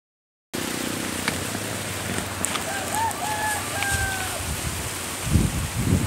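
A rooster crowing once: a few short notes run into a longer held one, over a steady outdoor hiss. Low rumbling bumps like wind on the microphone come in near the end.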